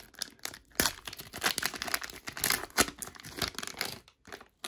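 Foil wrapper of a 1990-91 Skybox basketball card pack being torn open and crinkled by hand. It is a run of irregular sharp crackles, with a short pause near the end.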